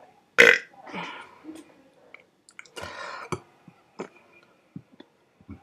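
A man's throat and mouth noises: one short, loud throat sound about half a second in, then quieter breath-like sounds and a few small mouth clicks.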